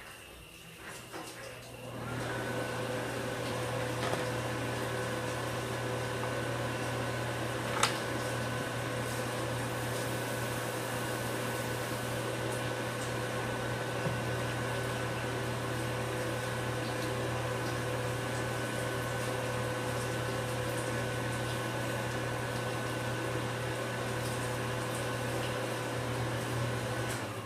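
A small electric appliance motor switched on about two seconds in, running with a steady, unchanging hum, and switched off just before the end. A single sharp click sounds about eight seconds in.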